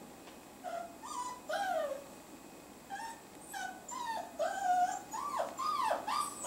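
Young puppy whining in a run of short, high cries that slide up and down in pitch, starting about a second in and coming faster toward the end. It is being held up off the ground for the elevation test and dislikes it, though it is not struggling.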